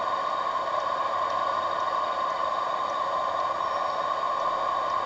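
Steady, even hiss with a constant mid-pitched hum running through it, without any change or rhythm.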